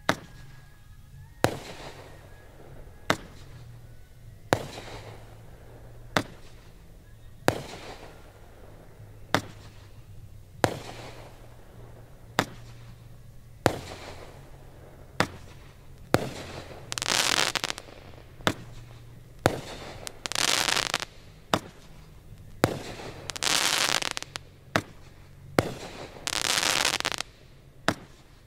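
A fireworks display: shells burst with sharp bangs about every second and a half. From about halfway through, these alternate with longer crackling bursts, each lasting about a second and a half.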